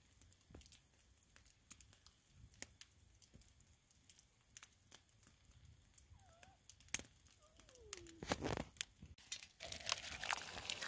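Wood campfire crackling, with quiet irregular snaps and pops. It grows busier and louder near the end.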